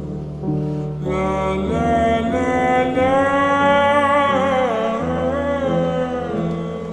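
Slowed-down, reverb-heavy song: a sung line comes in about a second in and holds a long, wavering note over a steady low accompaniment.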